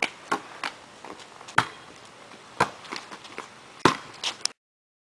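A volleyball being hit back and forth by hand: a string of sharp slaps of the ball on hands and arms, the loudest about one and a half seconds and four seconds in. The sound cuts off suddenly near the end.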